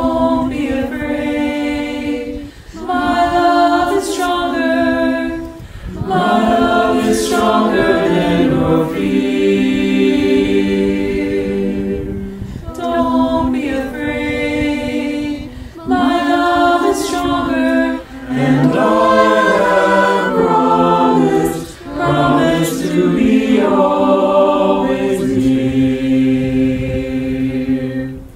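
A small mixed choir of men's and women's voices singing a slow hymn refrain a cappella in harmony, in sung phrases broken by short breaths.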